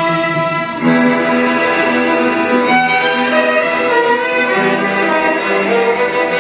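Instrumental break in a sung Christian song: a violin playing the melody in held, changing notes over a bowed-string accompaniment.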